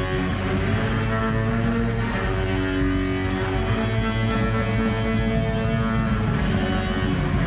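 Live rock music: an electric guitar plays sustained, ringing notes, with a steady fast beat coming in about two seconds in.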